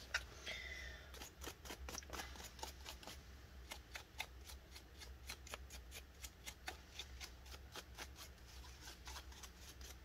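Faint, irregular scraping and ticking, a few strokes a second, as dust and grime are cleaned off a laptop's internal parts by hand.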